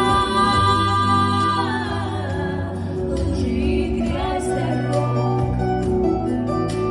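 Two girls singing a pop song as a duet over a recorded backing track with a steady bass line; a long held sung note slides down and fades about two seconds in, and the backing music carries on.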